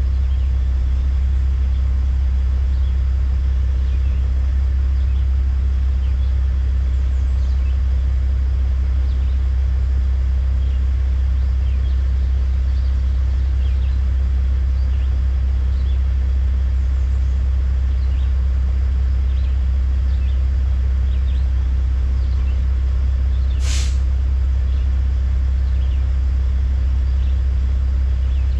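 Dump truck's diesel engine idling with a steady low rumble. Near the end comes one short, sharp hiss of air let out of its air brake system.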